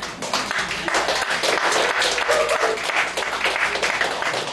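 Congregation applauding: many hands clapping together at the end of a sermon.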